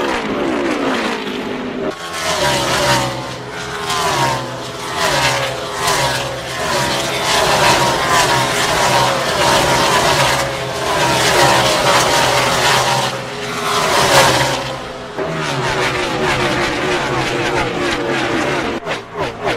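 NASCAR Gen 6 V8 race car engines running at racing speed, the pitch rising and falling again and again. The sound changes abruptly about two seconds in and again around fifteen seconds, as one clip is cut to the next.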